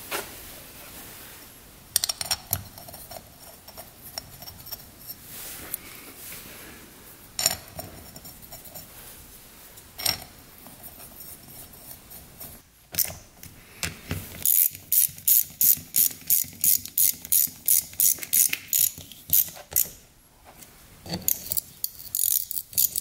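Ratchet wrench clicking as it drives the four bolts of a cover on a two-stroke dirt bike cylinder. A few separate clicks and knocks come first, then a steady run of about three or four clicks a second in the second half, which pauses briefly and starts again near the end.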